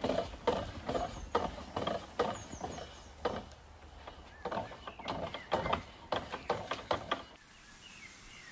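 Home-built pedal-to-paddle drive made from bicycle cranks and chain, working in a rough rhythm of clunks and clicks about twice a second, which stop about seven seconds in. Birds chirp faintly in the background.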